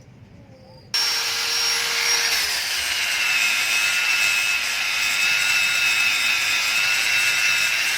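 Power sanding tool, such as a grinder with a sanding disc, smoothing the freshly welded body of a motorcycle muffler. It gives a steady high whine over a rasping hiss and starts abruptly about a second in.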